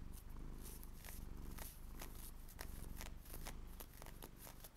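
Long fingernails scratching and tapping on knit knee-high socks: an irregular run of short, crisp scratches.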